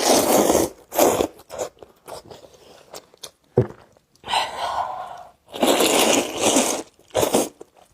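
Close-miked eating of spicy wide wheat noodles: a series of loud, wet mouthfuls and chewing, in bursts of about a second with short pauses between.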